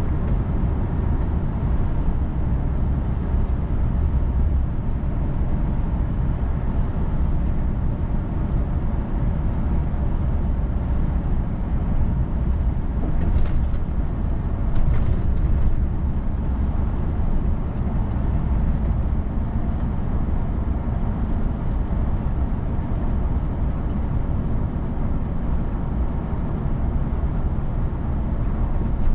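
Steady road noise of a vehicle driving on a wet road: a low rumble of tyres and engine that stays even throughout. A couple of brief hissing swishes come about halfway through.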